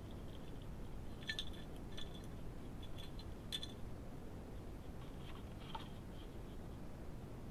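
Badger feeding at food dishes: a few sharp clinks and clicks of its snout and teeth against the bowls, the loudest about one and a half and three and a half seconds in, over a steady low hiss.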